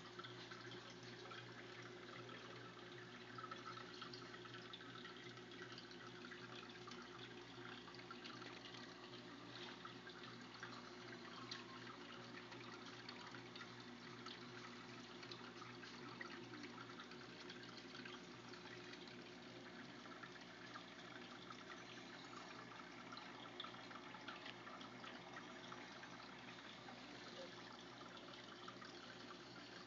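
Faint trickling and dripping of an aquarium's circulating water, with a low steady hum underneath.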